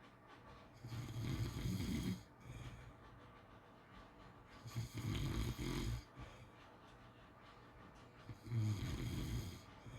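Pit bull snoring in its sleep: three snores about three and a half seconds apart, each lasting a second or so.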